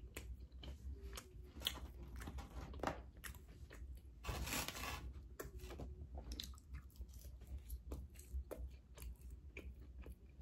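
Close-miked chewing of seasoned french fries, with soft crunches and small mouth clicks throughout. About four seconds in comes a louder rush of noise lasting about a second.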